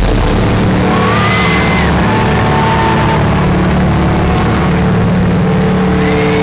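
Electric guitar amplifiers left droning with steady sustained feedback tones as the punk song ends, under a loud wash of noise, with brief high whistling glides about a second in and again near the end.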